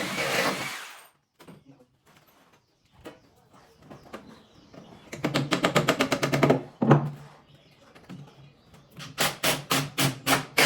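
A power tool runs steadily and stops about a second in. After a few light taps, two runs of rapid, evenly spaced knocking follow, with a low hum under them: the first about halfway through, the second near the end. This is tool and fastening work on wooden cabinets.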